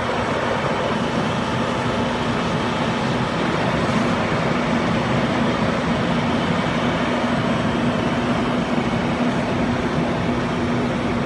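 Fire engine's engine running steadily to drive its pump for the hoses: a constant low hum under a steady rushing hiss.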